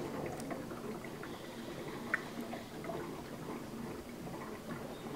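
Low steady room noise with a few faint ticks, the sharpest about two seconds in, as drops of universal pH indicator are squeezed from a small plastic bottle into a plastic bowl of water.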